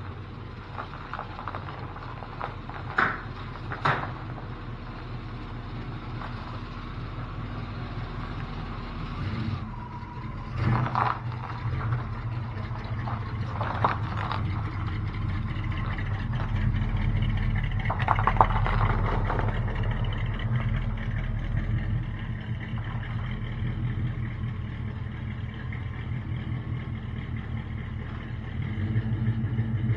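Pickup truck engine idling steadily, getting louder about ten seconds in. There are two sharp knocks about three and four seconds in.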